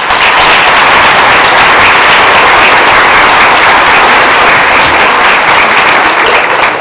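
Audience applauding, a loud, steady wash of clapping that starts abruptly and begins to ease off near the end.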